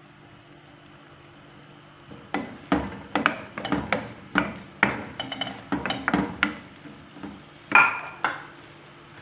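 A spoon stirring diced onions and peppers in a stone-coated frying pan, knocking and scraping against the pan two or three times a second. Near the end comes one louder knock with a short ring.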